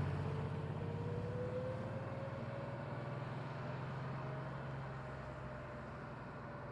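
A 1990 Porsche 911's air-cooled flat-six running and fading steadily as the car moves away, with a faint tone rising slowly in pitch.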